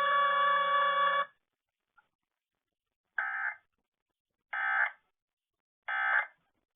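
Emergency Alert System End-of-Message signal: three short, identical bursts of screechy digital data tones about a second and a half apart, closing a Required Weekly Test. Before them, a steady electronic tone cuts off about a second in.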